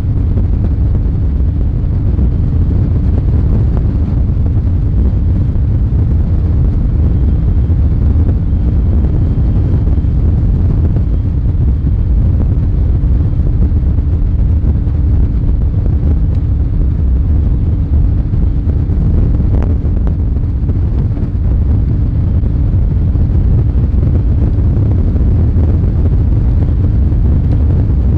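Fiberglass bass boat running at speed: a steady, loud rumble of wind buffeting the microphone over the outboard motor's drone and the hull on the water.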